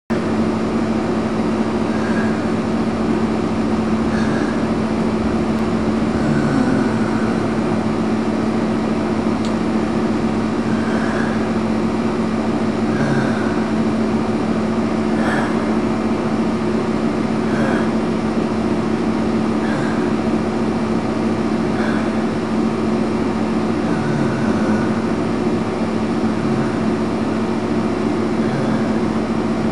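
Air conditioner running with a loud, steady hum, and a faint chirp about every two seconds.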